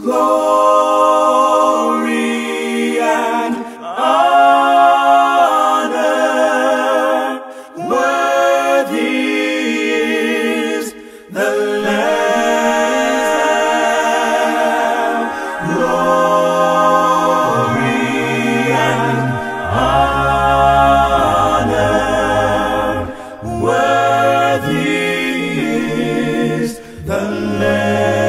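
A cappella choir singing a hymn in harmony, voices only with no instruments. The singing comes in phrases of a few seconds with short breaks, and a deep bass part comes in strongly about two-thirds of the way through.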